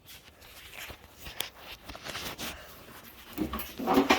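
Faint scattered clicks and rustles of hands working at parts, with a short burst of a voice near the end.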